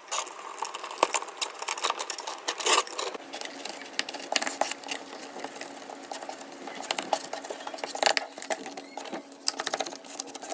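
A small machine running steadily, with a hum and a fast, continuous clattering of clicks.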